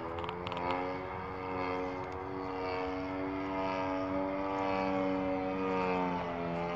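Radio-controlled aerobatic model airplane flying overhead, its motor and propeller making a steady droning tone that shifts a little in pitch as it manoeuvres, dipping briefly near the end before coming back up.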